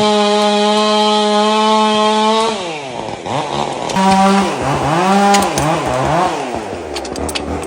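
Chainsaw held at full throttle, then dropping off about two and a half seconds in; it is revved up again in a few short blips and settles to a low idle near the end, with a few sharp clicks.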